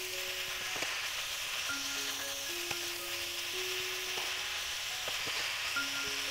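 Minced beef and vegetables sizzling steadily in a frying pan while being stirred with a spatula, with a few faint scrapes of the spatula against the pan. Soft background music plays over it.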